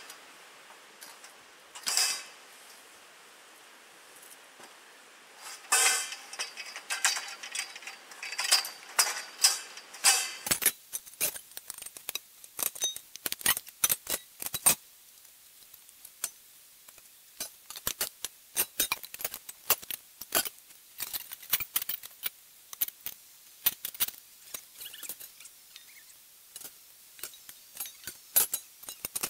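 Metal tent-frame poles and fittings clinking and knocking as they are pulled apart and set down, a long string of sharp metallic clinks that comes thicker from about a third of the way in.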